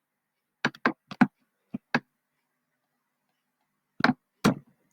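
Computer keyboard keystrokes, about seven quick irregular taps in the first two seconds and two more about four seconds in.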